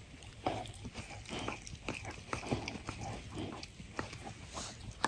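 Siberian husky licking and nibbling, a string of faint, irregular wet smacks and clicks.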